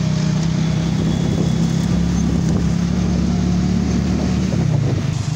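A road vehicle's engine running steadily while moving, a low drone over road and traffic noise; the drone eases slightly near the end.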